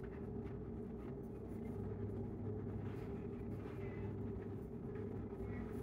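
Sharpie marker scratching and squeaking faintly across an album cover as it is autographed, over a steady low room hum.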